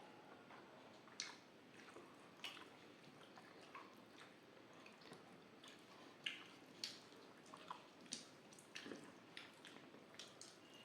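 Faint, close-up eating sounds: wet chewing, squishes and mouth smacks from eating rice mixed with dal, heard as a scatter of short clicks about one or two a second.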